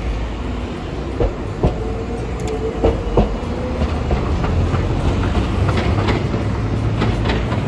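Hiroshima Electric Railway streetcar passing close by: a steady low rumble, with its wheels clacking sharply over the rail joints and crossings of the track junction, a few clacks in the first half and another run near the end.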